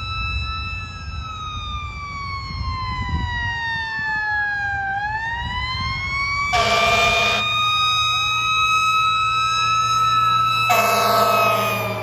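Fire truck's Federal Q mechanical siren winding slowly down and then spinning back up, with a second, fainter siren wailing faster underneath and the truck's engine rumbling low. The air horn blasts twice, a short blast a little past halfway and a longer one near the end as the truck passes.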